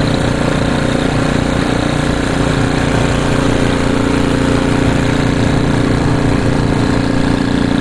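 A small engine running steadily at idle, a constant even hum that does not change in pitch or level.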